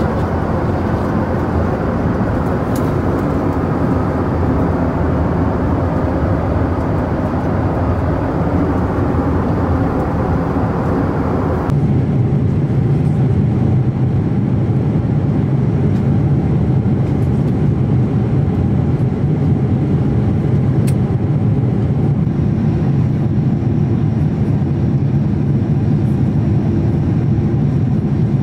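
Steady in-flight cabin noise of a Boeing 777-300ER at cruise: an even rush of airflow over the fuselage with engine drone. About 12 s in it turns to a deeper, less hissy rumble.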